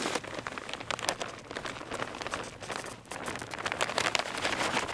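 Soil being poured into an EarthBox container planter: a dense crackle of many small ticks as the particles land.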